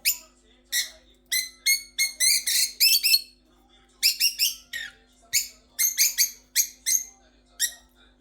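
Small caged parrots calling: a quick run of sharp, short chirps, several a second, with a brief lull a little before the middle.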